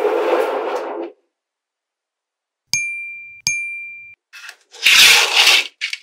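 Small neodymium magnetic balls rattling and scraping as a sheet of them is handled, cutting off suddenly about a second in. Then two bright ringing dings about three-quarters of a second apart, and near the end short bursts of the balls clattering together as sheets are pressed and joined.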